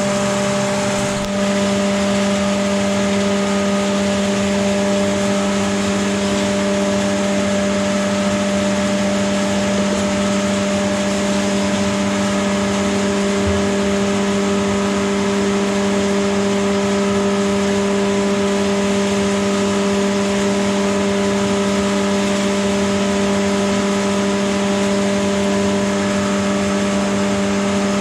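Electric feed mill running steadily, grinding grain into meal: a loud, even hum with a constant tone.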